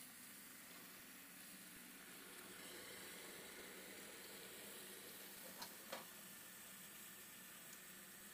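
Near silence: a faint steady hiss, with two light ticks in quick succession a little past halfway.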